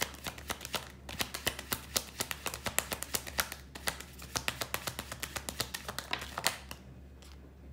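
Tarot deck being shuffled by hand: a quick, uneven run of crisp card slaps, several a second, that stops about a second before the end.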